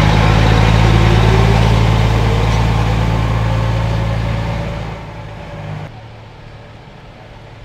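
Heavy vehicle's diesel engine idling loudly close by, with a steady low drone. A faint higher tone slowly rises in the middle, and the engine fades and drops away about five to six seconds in.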